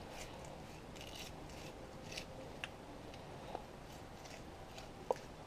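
Knife cutting a fish fillet away from its skin, in intermittent soft scraping strokes, with a sharper click near the end.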